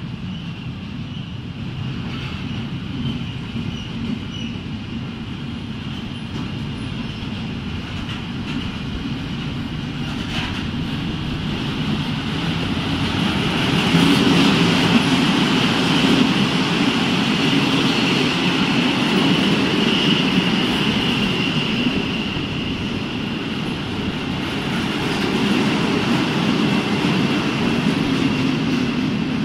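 Freight train of loaded double-deck car-carrier wagons rolling past at speed: a steady rumble of wheels on rail with a high whine above it, growing louder about halfway through.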